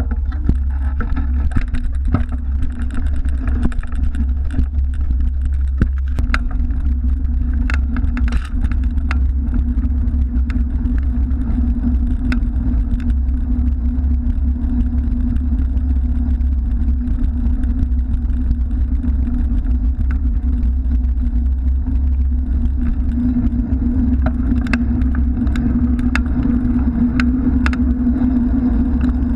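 Riding noise from a camera mounted on a moving bicycle: a steady low rumble of wind and tyres rolling on the road. Scattered light clicks and rattles from the bike come through over it.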